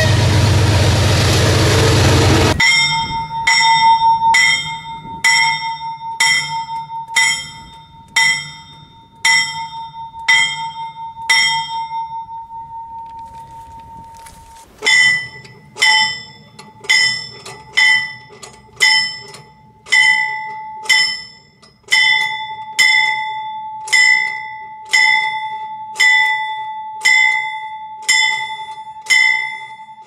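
A diesel freight train running past for the first couple of seconds. Then a locomotive's warning bell swung by hand, ringing about one and a half to two times a second; the strokes fade out, and after a pause of about two seconds the ringing starts again and keeps on steadily.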